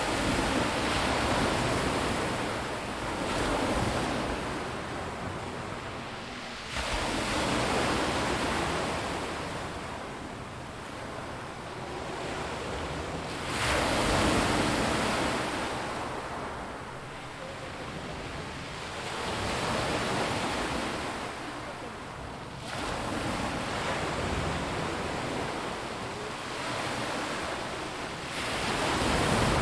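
Sea waves breaking on a rocky beach, each surge of surf swelling and washing back every few seconds, with the strongest breakers about halfway through and near the end.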